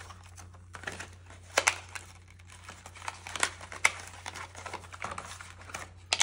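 Plastic packaging crinkling, with scattered light clicks and taps from a small figure and its wrapping being handled; a few taps, about one and a half, three and a half and four seconds in, are louder.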